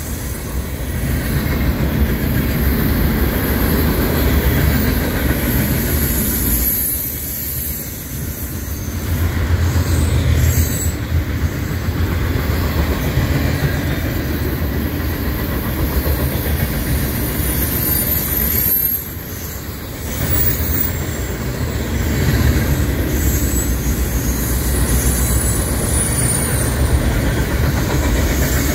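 Freight cars of a manifest train, mostly tank cars, rolling past close by: a steady rumble of steel wheels on the rails, with thin high wheel squeal coming and going. The sound dips briefly twice.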